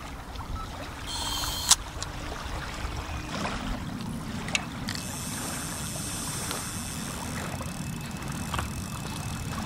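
Small wind-driven waves lapping on a sandy lake shore, with wind buffeting the microphone. There is a sharp click a little under two seconds in and a smaller one about halfway.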